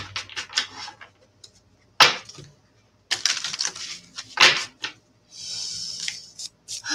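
Oracle cards being shuffled and handled: a run of crisp clicks and slaps, with a sharp slap about two seconds in and another a little after four seconds.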